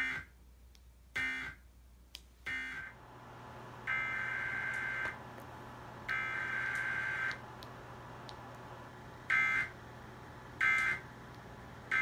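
Emergency Alert System SAME digital data bursts, the harsh buzzing chirps of the encoded header, played through a TV's speaker. Three short bursts, the end-of-message code closing the Maryland test, then after a cut two longer bursts of about a second each and three more short end-of-message bursts of a required weekly test.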